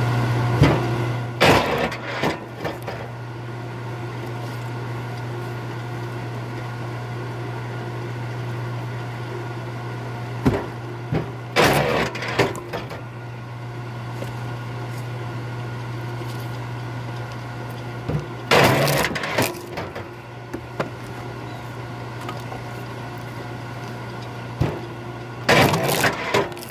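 K-10 10-ton electric kinetic wood splitter running with a steady motor and flywheel hum, firing its ram four times as rounds of oak and ash crack and split apart.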